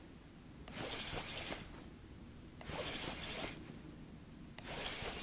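Spinning reel being cranked in short spells of about a second, three times with pauses of about a second between them: the stepped retrieve of a jig.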